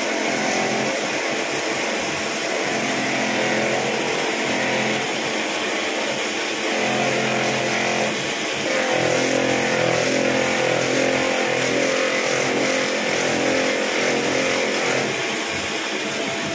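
Belt-driven finishing roller running on an electric motor, with an English willow cricket bat blade pressed against it: a steady machine hum with a hiss of wood on the roller, a little louder from about seven seconds in.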